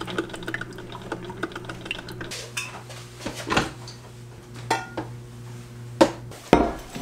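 Cups and cutlery clinking and clattering on a kitchen counter, with a few louder knocks in the second half, over a steady low hum.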